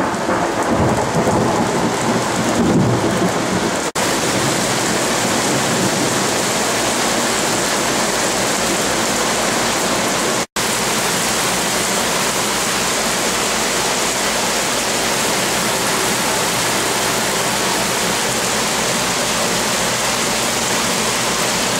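Thunder rumbling over falling rain for the first few seconds, then a steady heavy downpour of thunderstorm rain, broken by a brief cut-out about ten seconds in.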